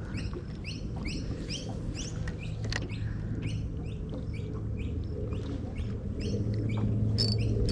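Small bird calling over and over in short, high, falling chirps, a few a second, over a steady low hum.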